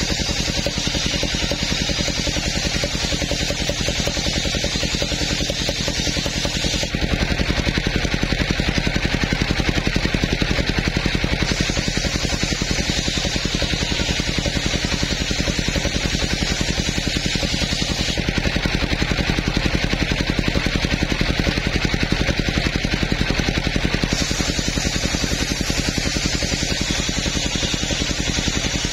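Circular saw bench ripping coconut-wood planks lengthwise: a large blade running steadily under a constant machine drone, with the sound of the cut shifting every few seconds as the boards are fed through.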